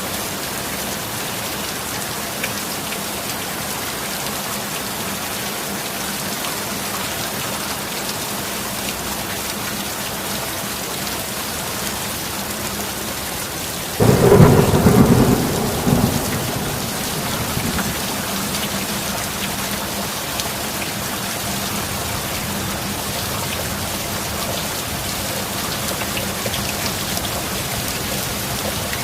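Steady rain falling, with a sudden loud clap of thunder about halfway through that rumbles for two or three seconds before fading back under the rain.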